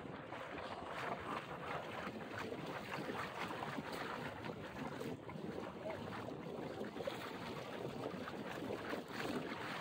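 Water rushing and splashing along the hull of a sailing felucca, with wind buffeting the microphone.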